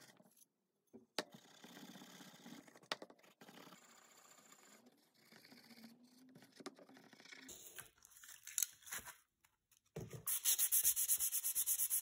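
Steel wool rubbed back and forth along a rusty steel screwdriver shaft, scrubbing off the rust with a faint scratchy sound. Near the end come louder, quicker rubbing strokes as sandpaper is worked along the shaft.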